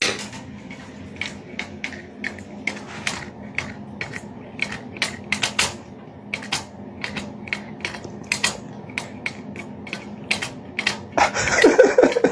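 An irregular series of sharp clicks and taps over a faint steady hum, with a louder burst of rustling noise near the end.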